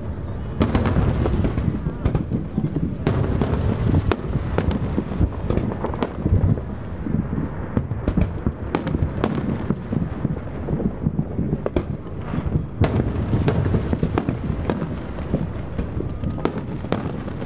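Aerial fireworks shells bursting in quick succession: many sharp bangs and crackles a second, overlapping over a continuous low rumble.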